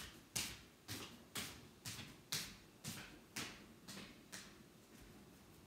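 A run of about ten light taps, evenly spaced at roughly two a second, growing fainter and stopping about four and a half seconds in.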